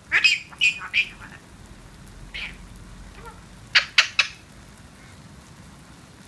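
Eclectus parrot giving short squawks and chattering calls in three bursts: a quick run of calls at the start, a single call in the middle, and another quick run about two-thirds of the way through.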